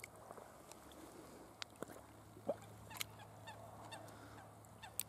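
Faint splashing and dripping of shallow lake water as a large common carp is eased out of a retention sling, with sharp little ticks of water. A few faint bird calls sound in the background, one brief rising call about halfway through.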